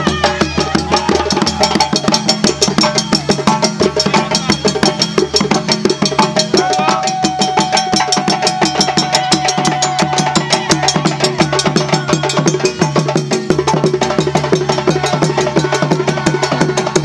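Djembe hand drums and a barrel-shaped bass drum played on its side, drumming a fast, steady West African rhythm. About seven seconds in, a single long high note is held over the drums for some three seconds.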